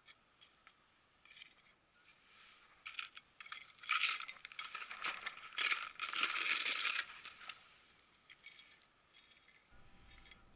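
Small metal hand trowel scooping and scraping potting soil mixed with perlite, the grains rattling and pouring into a plastic pot. Scattered light clicks, with a denser, louder stretch of rattling from about four to seven seconds in.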